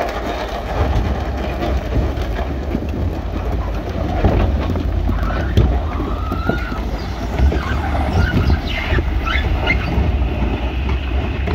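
Heavy diesel earthmoving machinery running with a steady low engine rumble, overlaid with metallic clanking and knocks and a few brief high squeals in the second half.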